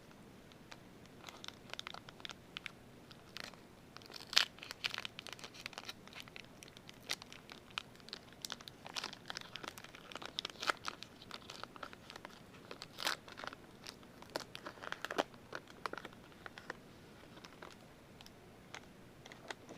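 Wrappers of Topps baseball card packs being torn open and crinkled by hand, with an irregular run of sharp crackles, loudest about four seconds in and again around thirteen seconds.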